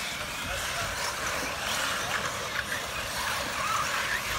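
Several 1/8-scale RC off-road buggies racing on a dirt track: a steady whirring hiss of motors and tyres on dirt, with faint whines rising and falling as the cars accelerate and brake.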